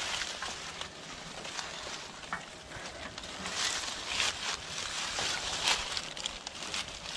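Aluminium climbing tree stand being handled against a tree trunk: rustling of its fabric seat and of dry leaves, with scattered light clicks and clanks from the frame and cables.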